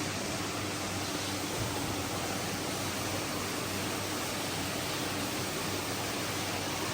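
Steady, even rushing noise with a faint low hum under it, unchanging throughout.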